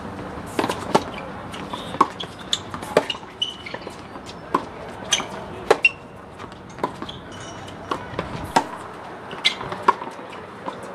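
Tennis balls struck by rackets and bouncing on a hard court during a baseline rally: many sharp pops at irregular intervals, some loud and some fainter.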